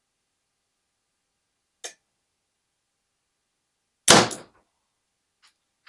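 Compound bow shot at full draw: one loud, sharp thwack of the string and limbs about four seconds in, with the arrow striking the target at close range almost at once. A faint click comes about two seconds before the shot.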